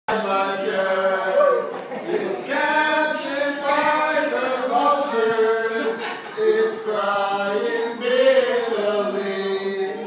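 Men singing a melodic song together, unaccompanied, holding long notes that glide from pitch to pitch.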